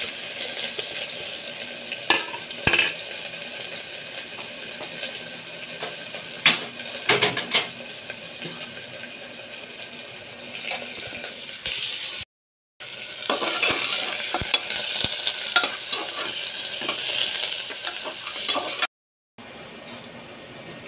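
Food sizzling in a hot pan, with a utensil stirring and clacking against the pan now and then. The sound cuts out briefly twice.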